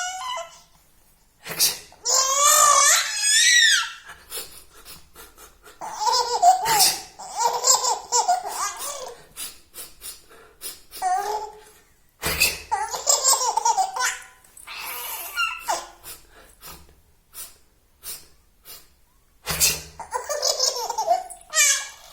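Small child laughing hard in four bouts of high-pitched, wavering belly laughs. Each bout follows a short, sharp sneeze that sets it off.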